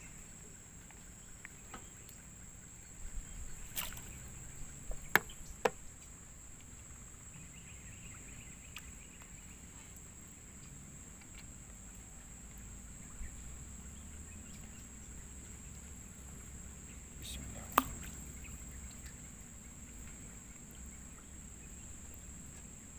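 A few sharp knocks and clicks as fishing gear is handled in a wooden canoe: three close together about four to six seconds in and one more near eighteen seconds, over a steady high-pitched whine.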